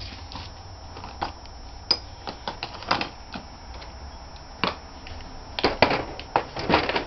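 Irregular light clicks and knocks of small hard objects being handled, with a cluster of louder clatters after about five and a half seconds.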